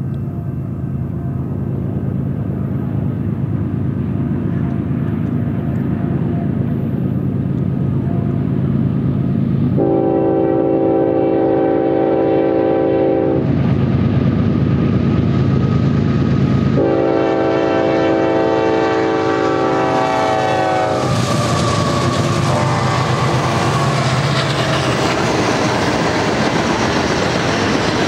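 Union Pacific GE diesel locomotives hauling a loaded coal train approach with a steady engine drone. They sound two long horn blasts, about ten and seventeen seconds in. As the engines pass, their note drops, and the rising rolling noise and clickety-clack of loaded coal hopper cars on the rails takes over.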